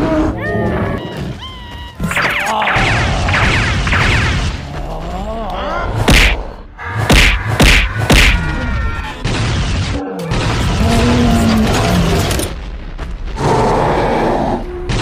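Cartoon fight sound effects over background music: booms and thuds of blows and impacts, with a run of sharp hits about six to eight seconds in.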